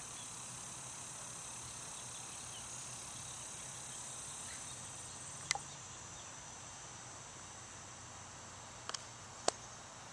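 Steady high-pitched chorus of insects. Three short sharp clicks break through it, one about halfway through and two near the end.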